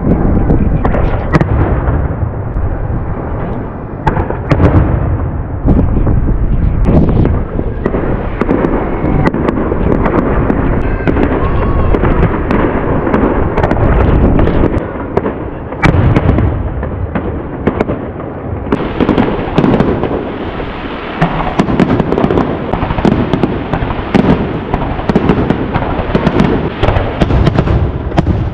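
Fireworks display: a dense, continuous barrage of booming shell bursts and sharp bangs. About two-thirds of the way in, the bursts thicken into rapid crackling.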